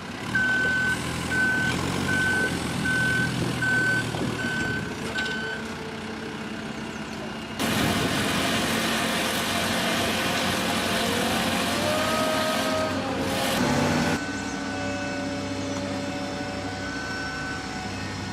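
Heavy vehicle's reversing alarm beeping about seven times, a little under a second apart, over its running engine. About halfway through, a loud rushing noise takes over for about six seconds, then stops suddenly and the engine is heard again.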